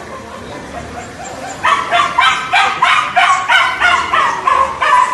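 A dog yelping in a rapid string of high-pitched cries, about three a second, starting almost two seconds in. These are the distress cries of a dog stranded on an air-conditioning unit high on a building's wall.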